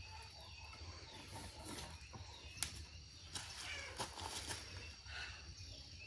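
A few light clicks and knocks as split firewood and wire are handled on a small stacked bonfire pile, with faint animal calls in the background.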